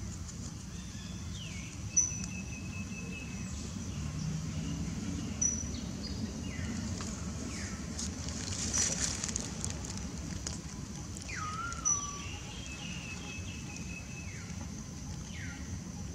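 Outdoor ambience: repeated short whistled calls that slide downward, with a sharp chirp about 2 s in and twice more later, over a steady high-pitched hum and a low background rumble.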